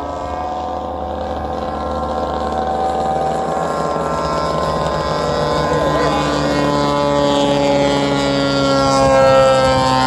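Engines of several giant-scale radio-controlled airplanes running in flight overhead, their overlapping engine notes drifting slowly in pitch and growing louder toward the end.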